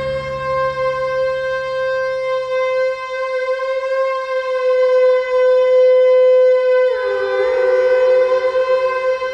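A steady electronic drone held on one note, with a low hum beneath it that fades out about three seconds in. About seven seconds in, a second, lower note glides down and holds, so that two tones sound together.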